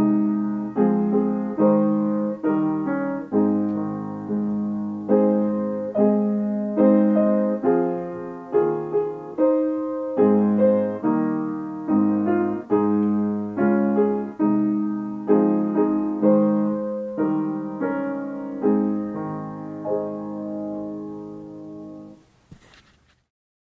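Solo piano playing slow, steady chords of a hymn-like piece. The final chord is held and dies away near the end, followed by a single faint click.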